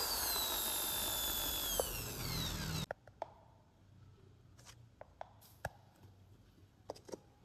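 Small electric drill running with a high whine that slides steadily down in pitch as it bores holes in a thin plastic container lid, stopping abruptly about three seconds in. A few faint light clicks follow as the plastic container is handled.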